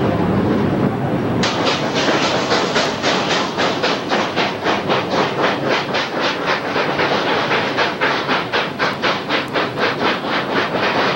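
Narrow-gauge steam locomotive working hard, its exhaust chuffing in an even beat of about four a second. The chuffing starts abruptly about a second and a half in, after a steady rumbling train noise.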